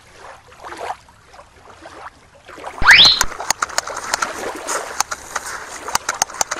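Water splashing and sloshing with many sharp clicks, starting after a loud, quick sound that rises in pitch about three seconds in.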